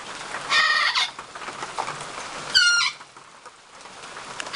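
Pet parrot giving two short calls, about half a second in and again about halfway through.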